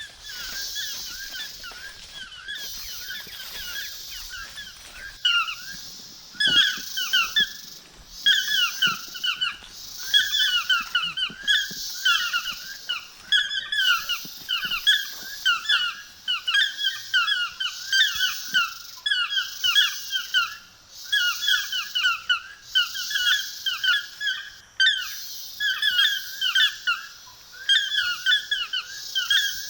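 Forest animal chorus: many rapid, squeaky chirping calls repeating without pause, over a high insect-like hiss that swells and fades every second or two. The chirping grows louder about five seconds in.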